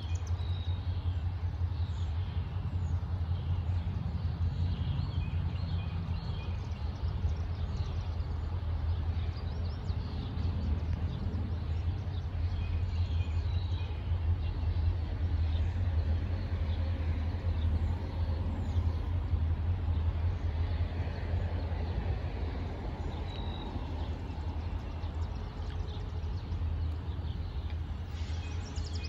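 Distant CSX freight train's diesel locomotives approaching, a steady low rumble, with small birds chirping over it.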